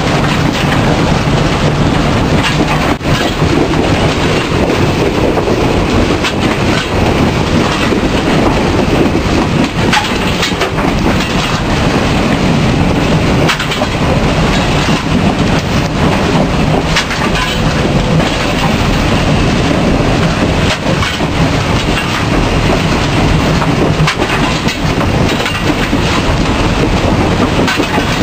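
Steam locomotive V-820 running under way, heard from inside its cab: a loud, steady din of the engine and wheels clattering over the rails, with occasional sharp clanks.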